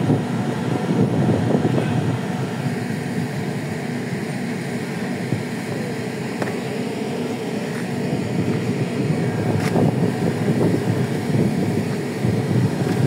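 Steady, noisy mechanical rumble of a tuna fishing vessel's engines and deck machinery, with a single sharp knock about three-quarters of the way through.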